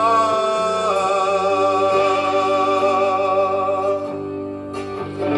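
Rock band music played from a home-cut lathe record: long held notes ring over a steady backing, with a few sharp strums or drum hits near the end.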